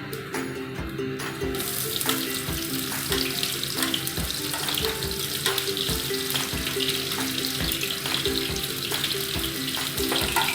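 Chopped onions sizzling in hot mustard oil in a kadai, the hiss starting suddenly about two seconds in as they go into the oil and running on steadily, over soft background music.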